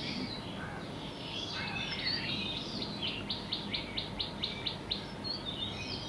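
Several songbirds chirping and twittering in short high calls, with a quick run of about ten evenly spaced notes, around six a second, in the middle.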